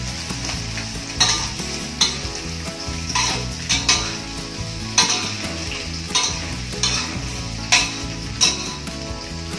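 Sliced shallots sizzling in hot oil in a wok while a spatula stirs and scrapes them against the pan, with a scraping stroke about once a second over the steady frying hiss.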